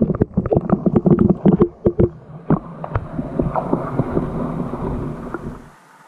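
Knocking, clattering and water sloshing as a camera is pushed down through a hole in the ice, thick with knocks for the first three seconds. A steadier muffled rush follows and drops away near the end as the camera sinks under water.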